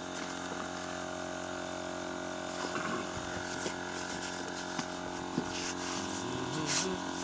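Electric air pump running steadily, inflating an inflatable boat, with a few light knocks and rustles of handling over it.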